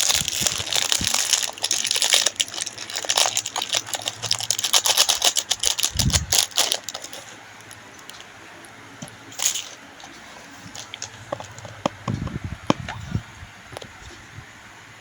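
Plastic packaging crinkling and rustling as it is handled and opened for about the first seven seconds, then a few scattered clicks and taps.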